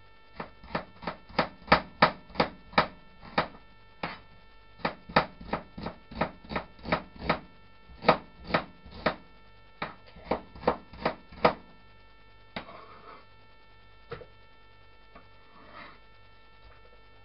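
Kitchen knife chopping red onion on a plastic chopping board: a steady run of sharp knocks, two or three a second, stopping about eleven seconds in. A steady electrical hum runs underneath.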